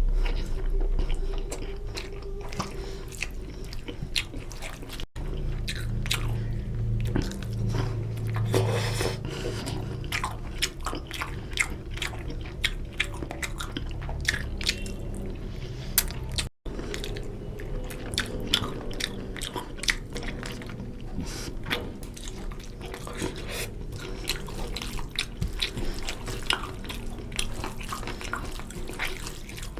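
Close-up chewing and biting of chicken curry with rice: a dense, irregular run of wet smacks and small clicks.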